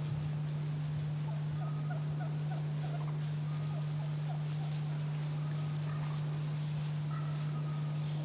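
A steady low hum, with a faint run of about eight short, quick notes between about one and a half and three and a half seconds in, and a few thin higher notes later.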